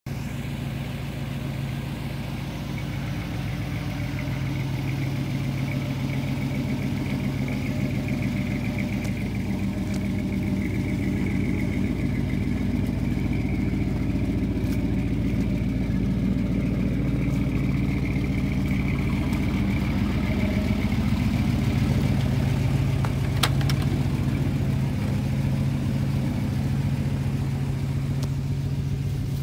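Chevrolet ZZ4 350 small-block V8 idling steadily in a custom 1956 Chevy C10 pickup, with a single sharp click late on.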